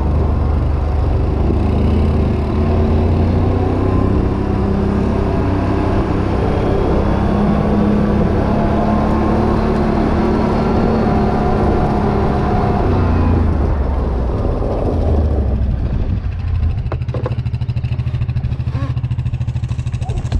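A Can-Am Renegade 1000 ATV's engine running under way, its revs rising and falling. About 16 s in it settles to a steadier, lower running, with a few clicks near the end.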